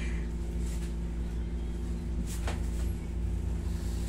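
Steady low hum of a wall-mounted room air conditioner, with one faint short noise about two and a half seconds in.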